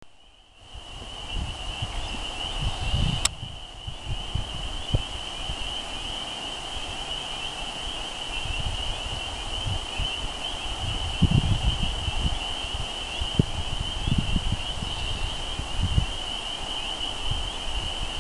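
Chorus of many frogs calling together in a spring marsh, a steady high-pitched shrill of overlapping calls. Wind buffets the microphone with low rumbles.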